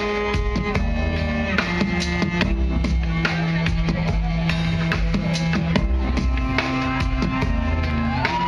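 Rock-style music with a driving drum kit, bass and guitar, playing at a steady loud level.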